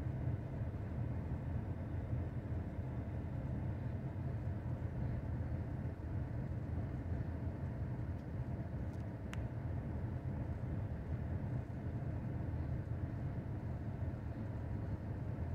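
Steady low outdoor rumble with no distinct engine note, with a single faint click about nine seconds in.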